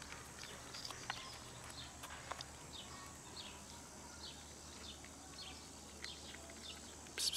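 Small birds chirping repeatedly in the background, short falling chirps, with faint crunching and clicking as cats and kittens eat dry kibble. A louder cluster of clicks comes right at the end.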